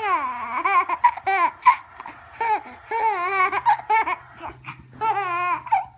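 A baby squealing and laughing in a string of high-pitched shrieks, the first one sliding down in pitch, with wavering laughs about three seconds in and again near the end.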